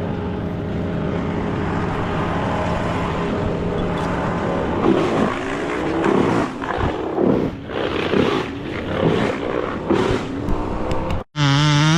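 Two-stroke chainsaw running steadily, then revving up and down repeatedly as it cuts. Near the end it cuts off abruptly and a different sound with a wavering pitch starts.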